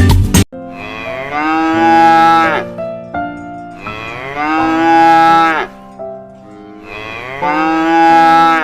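Cow mooing: three long moos, each about two seconds, each falling in pitch as it ends.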